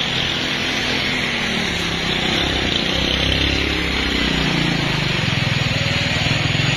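Truck engine running under load on a steep climb, its pitch rising about four seconds in, over a steady hiss.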